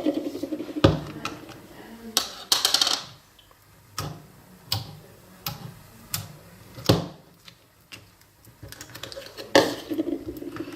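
Irregular sharp clicks and knocks, with a brief quick rattle of clicks about two and a half seconds in: hard plastic containers and utensils being handled and set down on a table.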